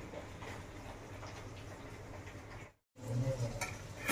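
Faint room tone with a low hum, broken by a moment of dead silence nearly three seconds in. After it come soft, irregular kitchen handling sounds as fresh coriander is trimmed with a knife.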